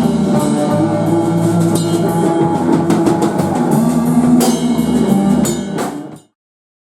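Rock band with drum kit playing the last bars of a grunge-tinged rock song, with sustained bass and guitar notes under the drums, then stopping dead about six seconds in.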